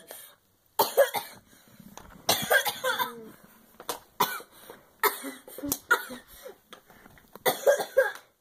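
A girl coughing and gagging in repeated harsh fits, choking on a goldfish cracker lodged in her throat.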